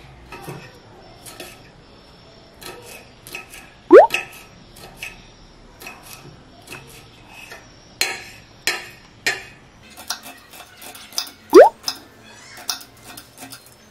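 Kitchen knife chopping vegetables on a cutting board, irregular taps of the blade against the board as carrot, then spring onion and celery, are sliced. Two short rising whistles, about four seconds in and near the end, are the loudest sounds.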